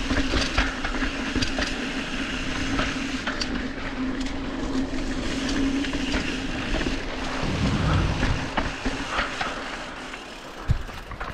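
Mountain bike rolling fast down a dirt trail covered in fallen leaves: tyre noise and wind, a steady hum, and constant clicks and rattles from the bike over bumps. It quietens as the bike slows near the end, with one sharp knock just before it stops.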